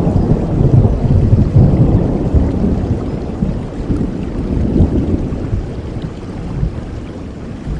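A long roll of thunder rumbling over steady rain, loudest in the first two seconds and slowly dying away toward the end.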